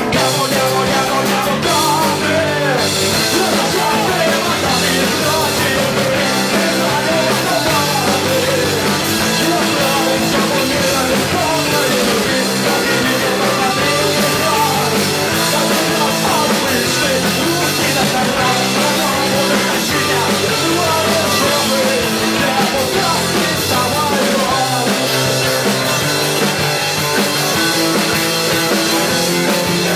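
Live rock band playing loudly and steadily, with drum kit, bass and electric guitar, in an instrumental break between sung verses.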